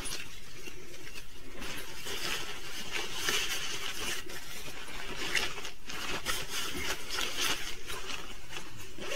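Rustling and scraping of a quilted fabric duffle bag being handled, with irregular crackles and no break.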